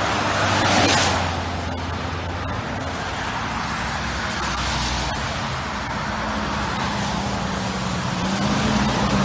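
Cars passing on a wet, slushy road, tyre hiss swelling and fading with the loudest pass about a second in. Under it a heavy truck's engine runs steadily and grows louder near the end as the snow plow truck approaches.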